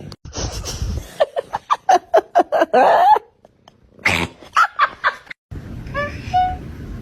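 A cat making a quick run of short, pitched calls that ends in a longer wavering cry about three seconds in; after a brief pause come a few more short calls and some brief chirps.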